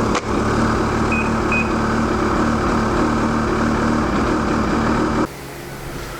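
Ski-Doo E-TEC two-stroke snowmobile engine running steadily on its first start after fresh spark plugs, then cutting off abruptly about five seconds in.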